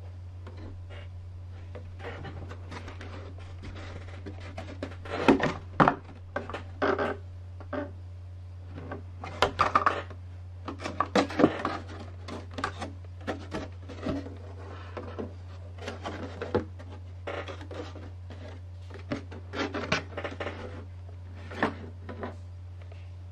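Handling noise from a painted polycarbonate RC truck body being turned over in the hands: irregular plastic knocks, taps and rubs, loudest about five to six seconds in and again around ten to twelve seconds in. A steady low hum runs underneath.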